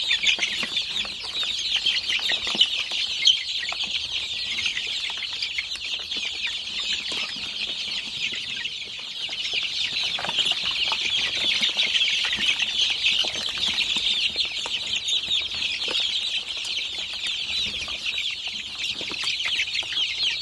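A large brood of young country chicken chicks peeping together: a steady, dense chorus of many short, high, falling cheeps.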